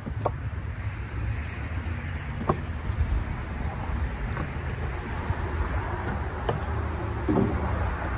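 A vehicle engine running steadily in a low rumble, with a few short sharp knocks of firewood bundles being set on the rack.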